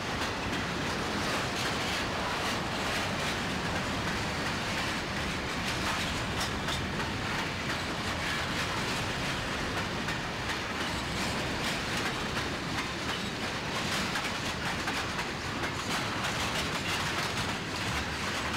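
Railroad cars rolling past at steady speed, a constant rumble and rattle with many sharp clicks from the wheels passing over rail joints.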